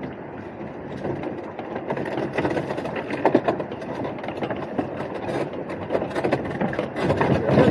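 Small fishing boat's engine running at idle while a lobster pot is hauled up over the side. Knocks and scrapes grow louder near the end as the pot comes over the gunwale.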